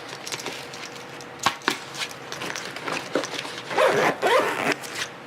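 Two sharp clicks, as from handling gear in a fabric tackle bag, about a second and a half in. Later comes a short, loud voice-like sound that bends in pitch.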